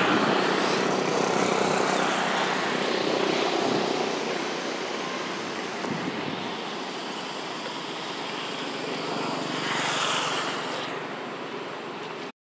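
Steady engine drone with a hissing noise over it, swelling briefly about ten seconds in.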